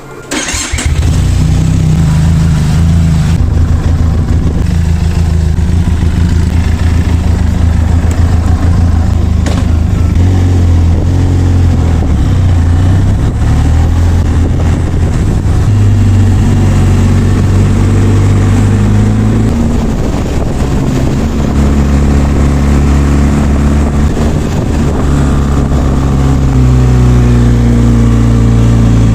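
Motorcycle engine starting up, then running on with its pitch stepping up and down as the revs change.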